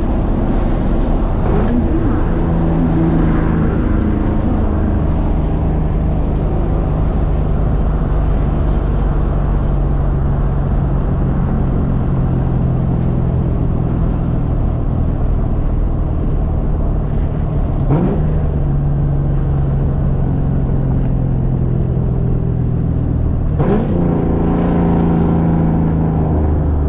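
Straight-piped Ford Mustang GT 4.6-litre two-valve V8 heard from the cabin while driving, a steady exhaust drone with two brief sweeps in pitch, about two-thirds of the way through and again near the end.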